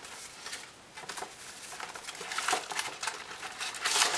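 Rustling and light tapping of packaging being handled: paper, plastic-wrapped discs and cardboard, with irregular small clicks, a cluster of them about two and a half seconds in and louder handling near the end.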